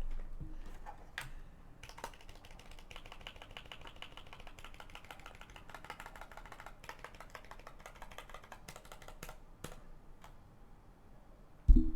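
Mechanical keyboard being typed on: a few single keystrokes, then a rapid run of key clicks for several seconds that stops about two seconds before the end. Near the end comes one short, loud thump.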